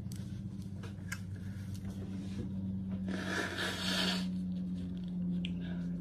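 Nose blown into a tissue: a hissing blast about a second long, a few seconds in, with tissue rustling around it. It is a runny nose from eating very spicy noodles. A steady low hum runs underneath.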